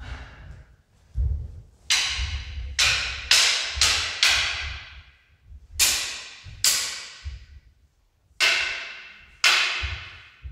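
A wooden bokken clashing against a longsword about ten times, each sharp clack followed by a ringing tail that fades over about a second. The clashes come in a quick flurry of four or five near the start, then in pairs with short gaps. Dull thuds of footwork on the wooden floor sound underneath.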